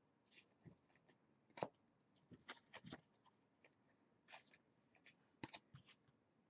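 Near silence with faint, scattered taps and rustles of trading cards being handled on a table; the clearest tap comes about one and a half seconds in.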